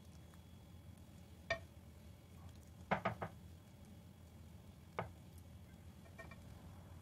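Kitchen utensils knocking against a glass baking dish as mashed potato is spooned on and spread: a single knock, then a quick run of three louder knocks about three seconds in, another knock around five seconds, and faint ticks after it.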